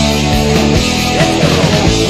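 Heavy metal band music: electric guitar over bass and a steady drum beat.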